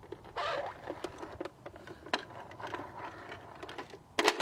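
Plastic clicks and rattles of a broken pull-string talking toy being handled, with a short scraping burst about half a second in and a cluster of louder clicks near the end.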